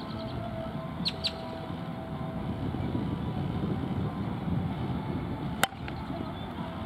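A bat hitting a softball off a batting tee: one sharp crack near the end. Two short bird chirps come about a second in, over a steady low background rumble.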